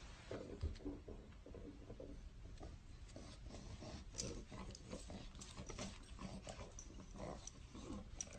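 A dog's quiet sounds, with many scattered light taps and clicks.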